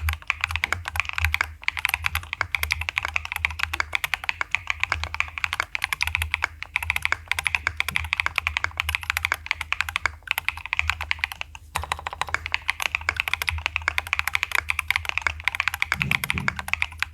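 Fast, continuous typing on a Kyubi Alice-layout mechanical keyboard, many keystrokes a second. There are a few brief pauses.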